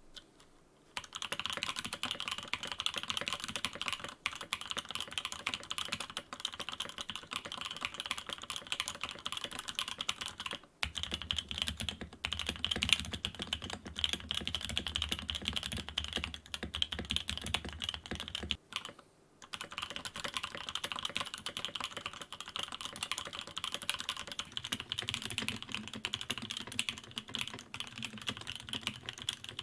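Fast typing on a Sam S80 top-mount mechanical keyboard whose case is lined with two layers of shelf liner foam: a rapid, continuous clatter of key presses, broken by two short pauses.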